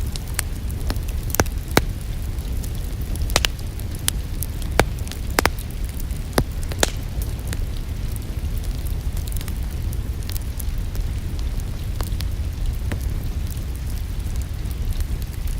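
Wood fire crackling, with frequent sharp pops and snaps that thin out in the second half, over a steady low rumble.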